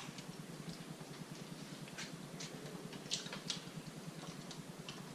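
A few faint, scattered clicks of spoons against dishes over quiet room hum.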